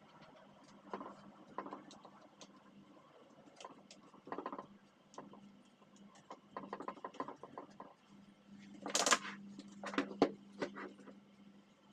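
Cleaning and handling sounds: irregular short scraping or rubbing strokes and light clicks, with the loudest cluster about nine seconds in, over a steady low hum.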